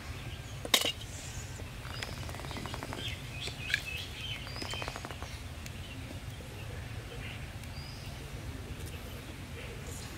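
Eggs being cracked on the rim of a bowl: one sharp crack about a second in and a lighter one nearer the middle. Birds chirp now and then throughout.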